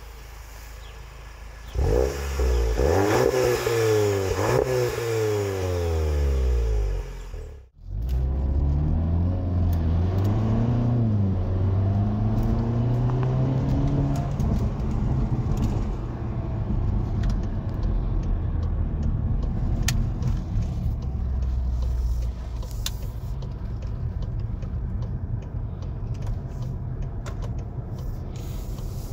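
VW Golf GTI Performance's 2.0-litre turbocharged four-cylinder engine and exhaust revving up and down several times, cut off abruptly for a moment about eight seconds in. It then revs up again and settles into a steadier run.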